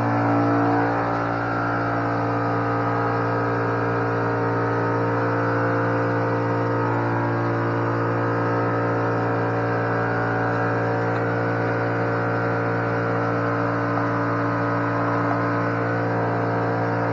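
A motor running steadily, a constant low hum with even overtones above it.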